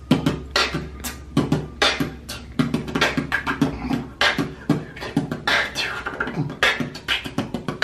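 A man beatboxing: a quick, steady rhythm of percussive mouth sounds, several beats a second, with short hummed vocal tones between them.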